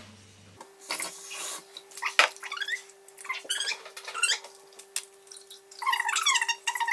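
Kitchen tap running, with a steady hum starting about half a second in, as water goes into a vase for flowers. A small child's high-pitched squealing, babbling calls come and go over it, thickest near the end.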